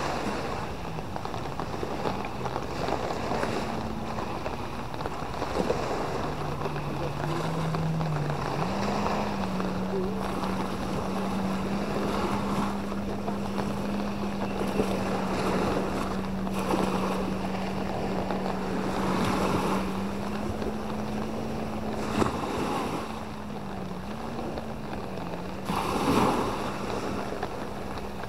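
Yamaha jet ski engine idling with a steady hum that comes in about six seconds in, steps up in pitch and then holds. Small waves wash on the shore and wind buffets the microphone.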